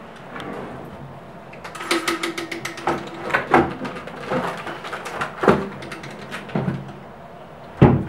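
Rummaging in a wooden wardrobe drawer: irregular clatter and knocks of metal tripod legs and other things being moved, with one louder knock near the end.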